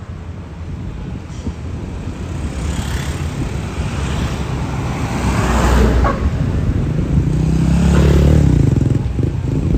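Large tour bus diesel engine running as a bus drives past close by, its rumble growing steadily louder and loudest in the second half.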